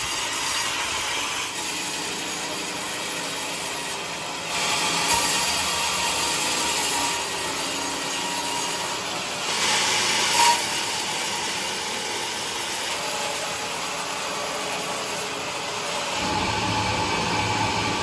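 Band sawmill cutting through a large log: a steady mechanical whine and rasp of the blade in the wood, swelling a little as it bites harder. Near the end the sound shifts to a lower, fuller hum.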